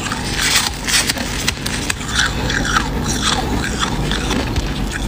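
Close-miked chewing of a mouthful of freezer frost: an irregular run of soft, crisp crunches as the ice crystals are bitten and ground.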